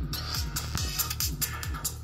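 Electronic music played through bare loudspeakers from a Grundig Super Color B 8802 CRT TV, an oval woofer and a small tweeter running in free air with no cabinet. Rapid bass notes drop in pitch one after another, under crisp high ticks.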